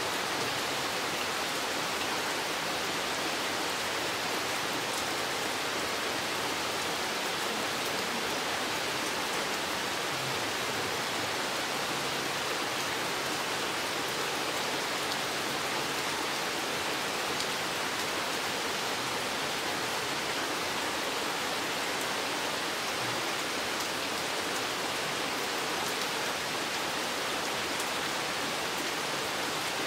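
Steady rain falling on a spruce forest: an even hiss of rainfall with a few faint ticks of single drops.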